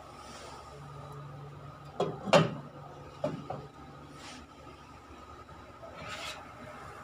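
Two sharp knocks about two seconds in and a softer pair about a second later, with brief rubbing scrapes, over a faint steady hum.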